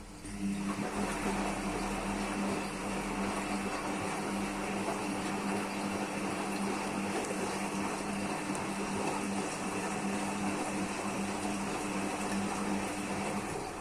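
IFB washing machine motor running steadily with a low hum during a rinse and spin program. It starts about half a second in and cuts off just before the end.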